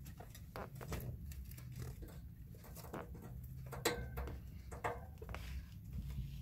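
Guinea pigs shuffling about in loose hay bedding, making irregular rustles and small clicks, with a sharper knock about four seconds in, over a low steady hum.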